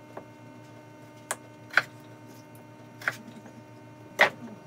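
About five sharp clicks or knocks at irregular intervals, the loudest near the end, over a faint steady hum.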